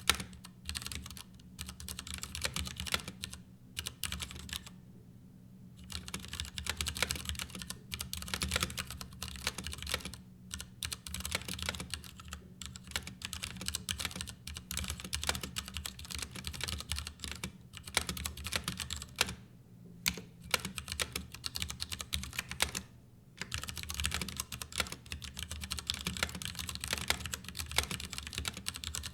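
Steady typing on a Ducky Year of the Rat mechanical keyboard: fast, irregular keystroke clacks, with brief pauses about five seconds in, near the middle and about two-thirds of the way through.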